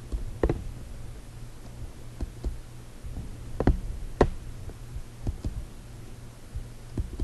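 Computer mouse clicking: about eight short, sharp clicks at irregular intervals, over a low steady hum.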